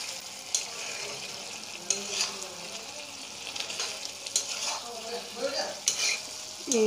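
A spatula stirring a thick jackfruit-seed and potato curry in a frying pan on low flame, with several sharp scrapes and knocks against the pan over a steady, gentle sizzle.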